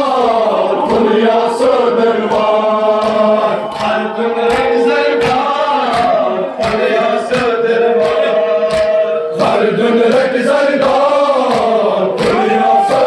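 A group of mourners chanting a Muharram noha (a lament) together in chorus, with repeated sharp thumps beating along with the chant.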